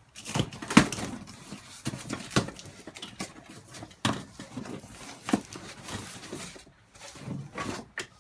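Cardboard packaging and loose lathe parts being handled during unboxing: irregular knocks, clicks and rustles, the sharpest knock just before a second in.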